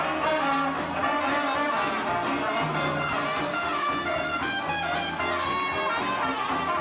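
Live swing band playing an instrumental passage led by a brass section of trumpet and trombone, with a steady beat, heard through a camcorder's tape audio.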